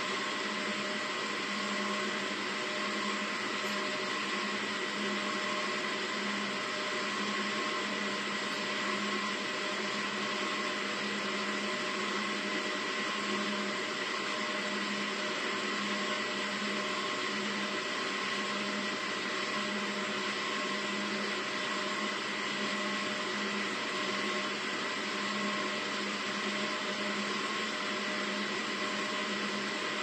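Steady machine hum with hiss, several fixed tones over an even noise, one low tone pulsing gently; it does not change at all.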